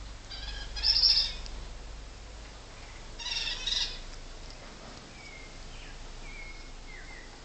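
Two short bursts of high chirping calls about three seconds apart, the first louder, followed by a few faint short whistles.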